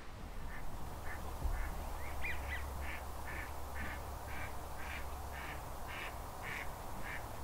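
Duck quacking in a steady series, about two quacks a second, over a low steady rumble, with a few quick high chirps about two seconds in.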